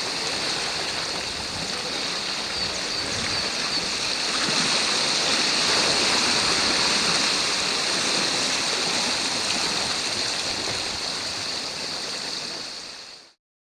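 Steady wash of sea surf on a rocky shore, cutting off suddenly near the end.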